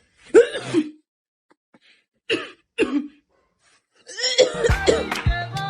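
A man coughing in three short bouts, the cough that is described as very bad. About four seconds in comes a louder, denser stretch of mixed sound with steady held tones.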